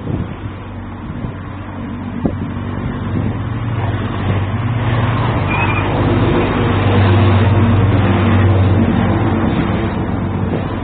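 Motor vehicle engine running with a steady low hum over a noisy haze, growing louder over several seconds and easing off a little near the end.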